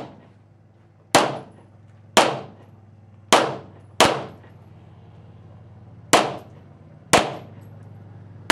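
Seven single shots from a 9mm 1911 pistol, each a sharp crack with a short echoing tail. They come mostly about a second apart, with a longer pause about halfway through.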